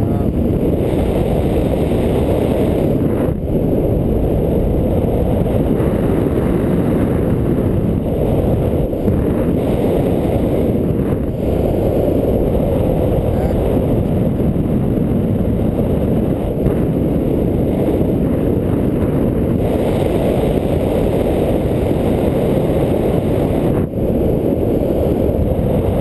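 Steady, loud wind noise from the airstream rushing over the microphone of a head-mounted camera in flight under a paraglider, heaviest in the low end.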